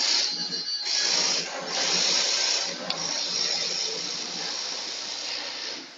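Industrial three-needle sewing machine running as it stitches a non-woven dust bag: a steady high whir, a brief run at the start, then a longer run from about a second in that dies away near the end.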